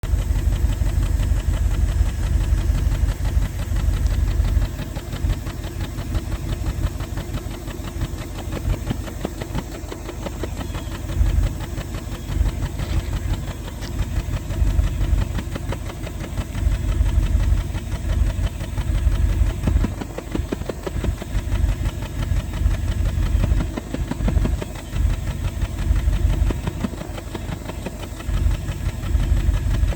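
Exhaust of a 1988 Bentley Eight's 6.75-litre V8 at the tailpipe, idling with an uneven popping that grows louder and softer in stretches of a few seconds. The owner takes the popping for a misfire in one or more cylinders.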